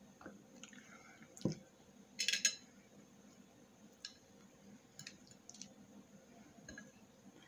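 Faint eating sounds: a sip from a glass, then a knock, a short scrape and a few light clicks of a fork against a plate.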